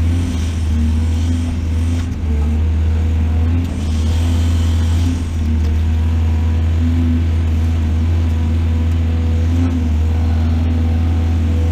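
Heavy diesel engine of an excavator running steadily with a deep drone, with short rushes of hiss near the start and again around four to five seconds in.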